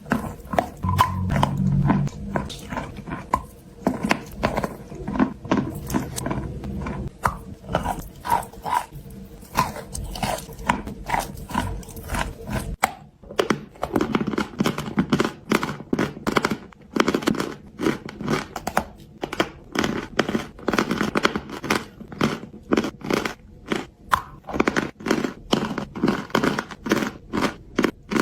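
Lumps of dry white clay being bitten and chewed close up: a steady run of crisp crunches, about one to two a second. The sound changes abruptly about halfway through, as if at a cut.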